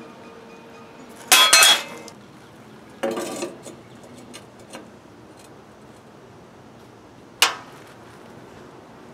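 Steel clanking as a welded steel hitch bracket and a wrench knock against a riding mower's steel frame during fitting. A ringing clatter of several metal clinks comes about a second in, a shorter rattle follows at about three seconds, and one sharp clink comes near the end.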